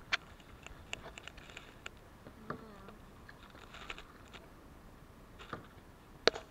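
Small waves lapping and splashing against a kayak close to the camera: scattered light ticks and patters of water, with one sharper click about six seconds in.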